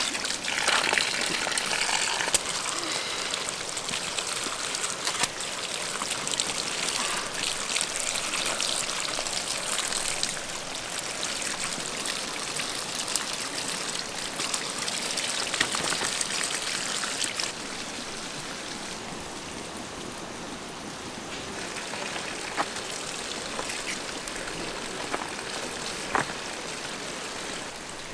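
Water running from a bamboo spout and splashing into a woven basket as food is rinsed under it by hand. The splashing drops to a quieter wash about two-thirds of the way through, with a few light knocks near the end.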